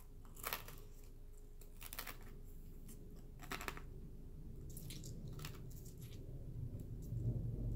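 Close mouth sounds of chewing and biting fried corn dog batter off its wooden stick, a few small crunches and clicks. Near the end a low rumble builds: a military helicopter passing over.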